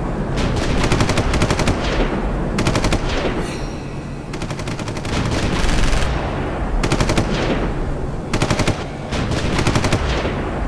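Battle sound effects: several short bursts of rapid machine-gun fire over a continuous low rumble.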